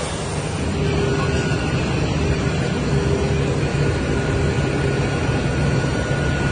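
Steady drone of an Ilyushin Il-76 transport aircraft's engines, with a few steady hums, heard inside the cargo hold. It grows a little louder about a second in.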